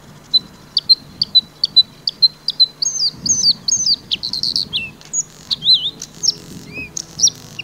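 A songbird singing. It begins with a run of short, high repeated notes, about three a second, then breaks into a faster, varied phrase with whistled glides up and down in pitch.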